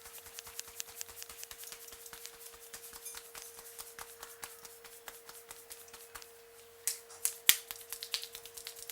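Hands tapping quickly on a head in an Indian head massage, about five light taps a second. The tapping breaks off about six and a half seconds in, and three sharp snaps or cracks follow; the last, about seven and a half seconds in, is the loudest.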